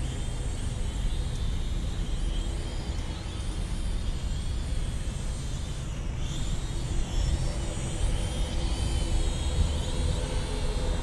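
Small quadcopter drone's propellers whining overhead, the pitch wavering up and down as it flies, clearest in the second half. Under it runs a steady low rumble of road traffic.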